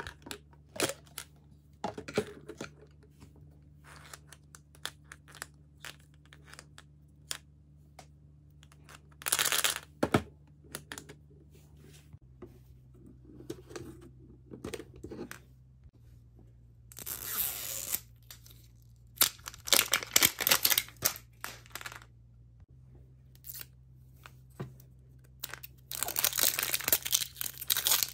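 Crinkling and tearing of thin plastic shrink wrap as it is peeled off a plastic capsule ball, with scattered clicks and taps of the hard plastic tube and ball. Sporadic at first, with louder stretches of crinkling about halfway through and near the end.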